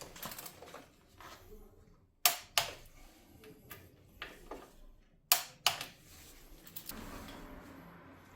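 Sharp clicks and knocks of tools or parts being handled, loudest as two quick pairs: one a little after two seconds in, another about three seconds later.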